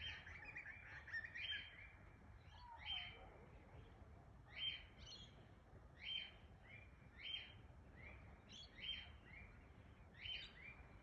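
Birds calling faintly in the evening: short, high call notes repeating about once every second or so, with one lower, falling note about two and a half seconds in.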